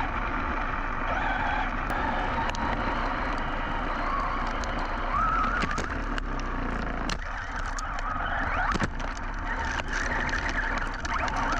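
Team Associated Rival MT10 RC monster truck driving over dirt, its brushless motor whining up and down in pitch with the throttle. Tyres churn steadily, and scattered sharp knocks and clicks come from the truck hitting ground and debris.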